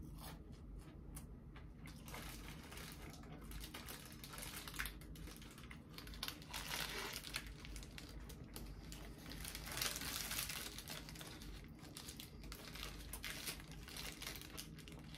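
Paper wrapper of a Burger King burger crinkling in irregular rustles as it is handled while the burger is eaten, loudest about ten seconds in.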